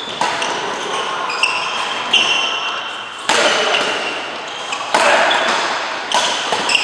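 Badminton rally: rackets hit the shuttlecock back and forth with a sharp crack about every second, and shoes give high squeaks on the court mat, echoing in a large hall.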